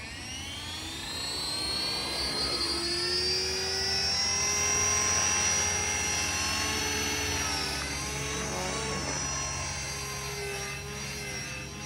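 GAUI X3 electric RC helicopter spooling up: a high motor and rotor whine that rises in pitch and levels off about four seconds in, then runs steadily with the pitch wavering slightly.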